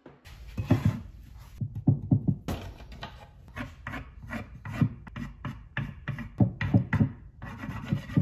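A red crayon scribbled back and forth across the rough-sawn face of a walnut board: rapid, uneven scratchy strokes, about three a second, each with a low knock.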